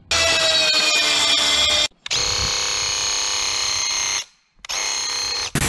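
A string of short power-tool clips cut together. Each is a steady motor whine with a fixed high pitch that stops abruptly. The tools are a Makita plunge track saw running along its guide rail on OSB and a handheld paint sprayer spraying, and the last stretch is an even spray hiss.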